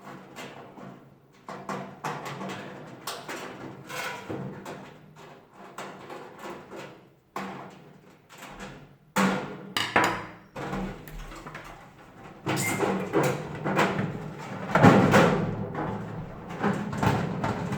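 Irregular knocking and clattering of metal panels and tools as an electric oven is taken apart.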